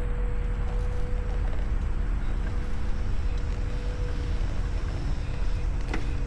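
Heavy machinery running steadily, a low continuous engine rumble, with a thin steady whine that fades out about four seconds in.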